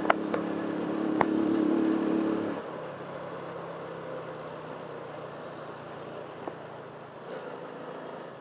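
Vehicle engine running at a steady pitch, then easing off about two and a half seconds in to a lower, quieter note that carries on steadily. A few sharp clicks over it.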